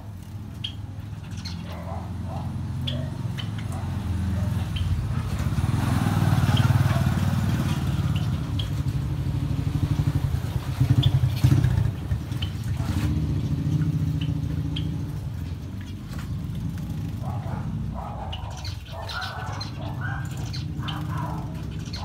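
Low rumble of a motor vehicle's engine that swells to its loudest around the middle and fades again, with short chirps from caged finches throughout and more of them near the end.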